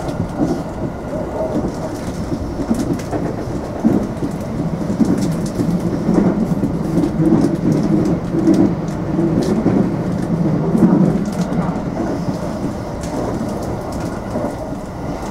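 227 series electric train running between stations: a steady low rumble of wheels on rail with scattered light clicks, and a faint hum that strengthens in the middle.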